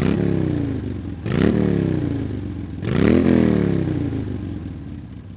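Motorcycle engine revved three times, each rev rising quickly and then falling away slowly, the sound fading out after the third.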